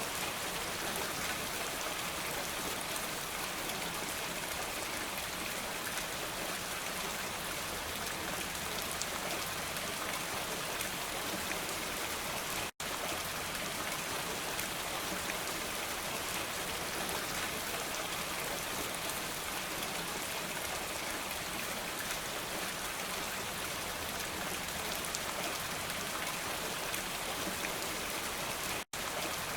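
Steady, even rainfall, a dense patter of raindrops with no thunder. The sound drops out to silence for an instant twice, about 13 seconds in and again near the end.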